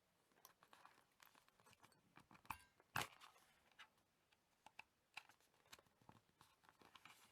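Faint clicks and rustles of small objects being handled, with two louder knocks about two and a half and three seconds in.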